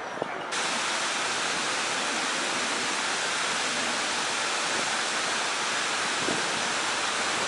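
A steady, even rushing noise like running water, starting abruptly about half a second in.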